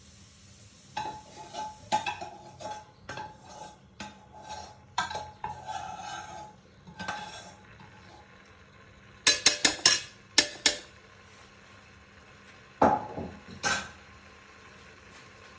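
A metal utensil stirring and scraping through chicken and turnip in a kadhai, with a run of strokes in the first half and then a quick cluster of sharp clinks against the pan, and two more near the end.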